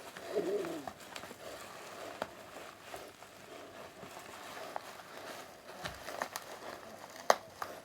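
Packaging being handled while a box of comics is unpacked: faint crinkling with scattered clicks and taps, a short wavering sound about half a second in, and a sharper click near the end.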